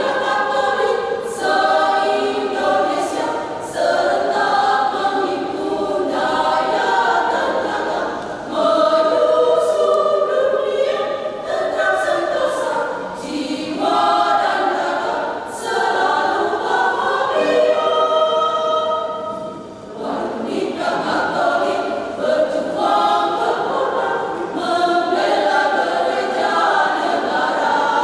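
Women's choir singing in several parts, sung phrases running on with a short break between phrases about twenty seconds in.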